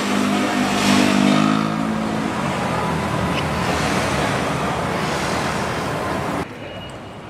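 Road traffic: an engine passes close by in the first two seconds over a steady wash of street traffic noise. The sound drops abruptly to a much quieter background about six and a half seconds in.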